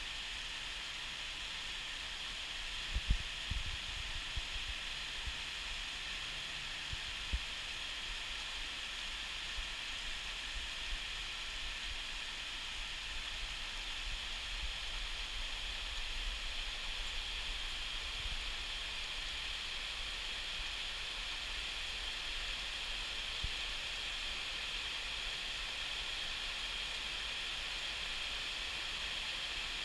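Steady rain falling on corrugated metal roofs, an even hiss. A few low bumps come about three to four seconds in and again at about seven seconds.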